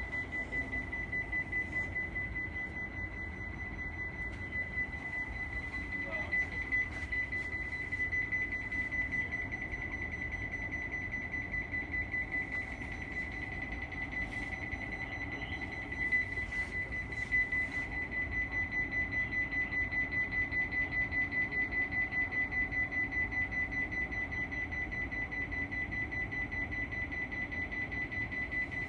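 High-pitched electronic alarm buzzer sounding continuously on one rapidly pulsing tone, over low station rumble: the warning that goes with a train's emergency stop.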